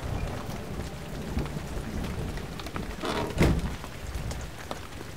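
Tools knocking and scraping at a metal safe over a low rumble, a dense run of short clicks and knocks with one louder hit about three and a half seconds in.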